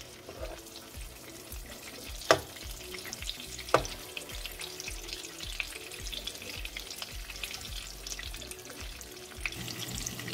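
Sliced sausage sizzling and crackling in hot bacon grease in a nonstick skillet. Two sharp clicks of a metal spoon against the pan come about two seconds in and again about a second and a half later.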